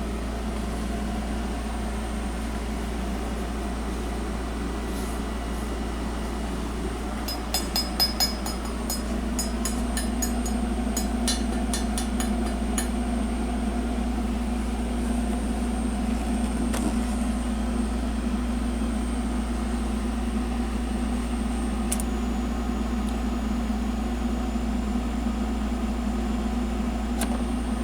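Steady mechanical hum with a run of quick clicks from about seven to thirteen seconds in, and a couple of single clicks later.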